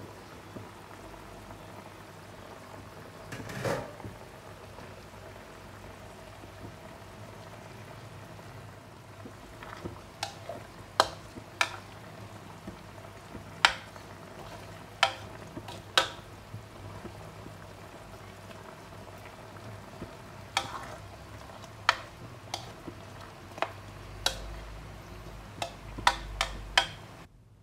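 Chicken and mushroom stew simmering in a wok, bubbling steadily. There is a short knock about four seconds in, then from about ten seconds on a metal ladle clinks sharply against the wok a dozen or so times as the stew is stirred.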